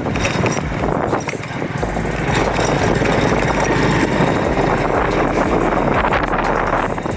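Honda CD 70's single-cylinder four-stroke engine running steadily while the motorcycle is ridden.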